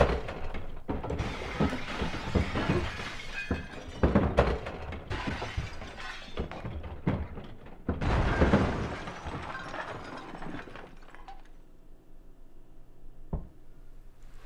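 Loud crashing and smashing noises, a dense run of breaking sounds and sharp hits that dies away about eleven seconds in, leaving a quieter stretch with a few separate knocks near the end.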